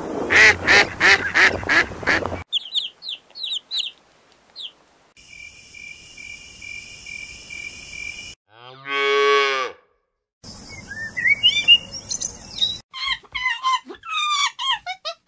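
A run of different animal sounds: first Canada geese honking, about seven calls in two and a half seconds, then a few short chirps. A snake hisses steadily for about three seconds, followed by a brief pitched call and a series of quick chirping calls near the end.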